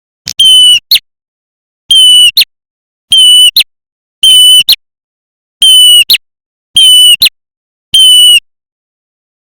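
Lure recording of prenjak calls: seven loud, short calls about once a second, each a steady high note ending in a quick upward flick, repeated in a loop.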